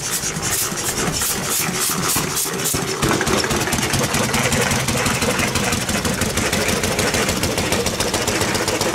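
1897 De Dion-Bouton motor tricycle's 225 cc single-cylinder engine starting as the trike is pedalled off: a regular rasping beat about three times a second, then about three seconds in the engine catches and runs with a fast, even beat.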